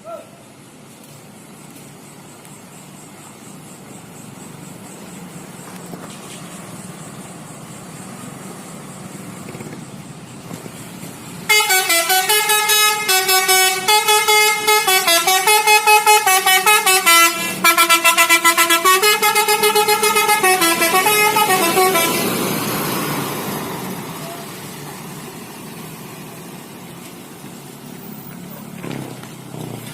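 A bus approaching, its engine and road noise growing louder, then sounding a telolet horn: a multi-tone musical air horn playing a short tune of changing notes for about ten seconds. The bus noise then fades away as it passes.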